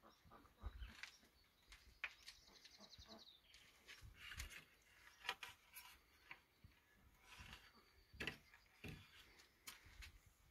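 Near silence, with faint scattered clicks and ticks and a brief rapid trill of ticks about two seconds in.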